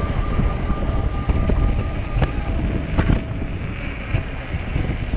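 Strong wind buffeting the microphone during an electric bike ride, a heavy low rumble, with a faint steady electric-motor whine that fades out about two seconds in. A couple of sharp knocks come through about two and three seconds in.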